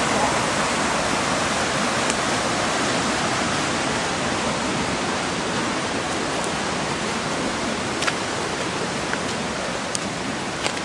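Floodwater rushing steadily, with a few faint clicks about two, eight and ten seconds in.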